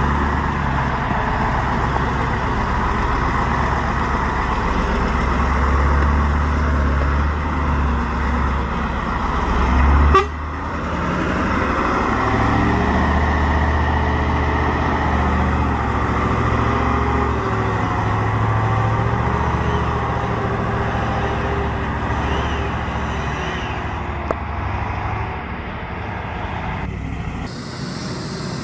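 Heavy logging truck diesel engines running, with an abrupt cut about ten seconds in to another engine whose pitch wavers.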